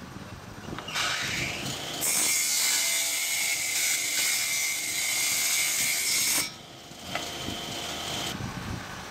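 Table saw motor winding up with a rising whine, then cutting through a pine board for about four and a half seconds with a loud, steady high-pitched scream. After the cut it runs free more quietly, and its high tone stops near the end.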